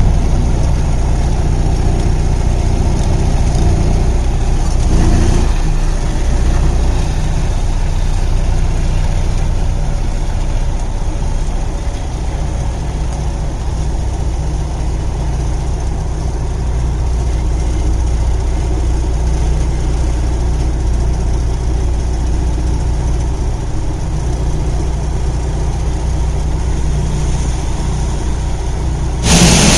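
Semi truck's diesel engine running steadily, heard from inside the cab. Near the end a loud hiss cuts in suddenly.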